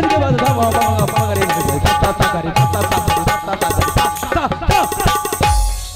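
Dholak hand drum playing a fast folk rhythm over a held harmonium note: bhajan accompaniment between sung lines. The drumming thins out briefly near the end.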